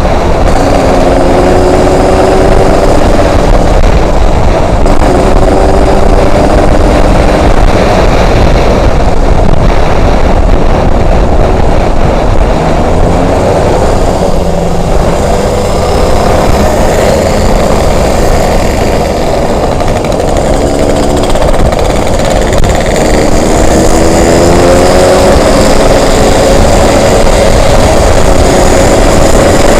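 Yamaha RX King's single-cylinder two-stroke engine running on the move, its pitch rising several times as it accelerates, under heavy wind buffeting on the microphone.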